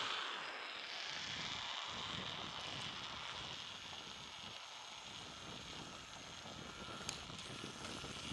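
A car moving along a road, heard from the vehicle: a steady hiss of tyre and wind noise, with a single short click about seven seconds in.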